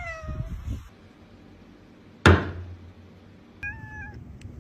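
A domestic cat meows twice, a short falling meow at the start and another about three and a half seconds in. A sharp thump a little over two seconds in is the loudest sound.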